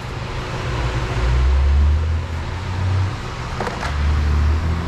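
Electric radiator cooling fans running steadily with a whooshing air noise while the engine is off, having switched on by themselves, which is not normal. A low rumble comes and goes twice.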